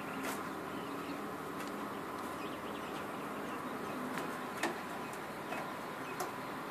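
Scattered light knocks and clicks over a steady hum, from materials being shifted on the bed of a flatbed delivery truck; the loudest knock comes about four and a half seconds in.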